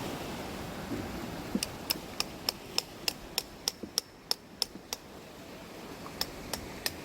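A run of sharp, light clicks, about three a second, stopping for about a second and then starting again near the end.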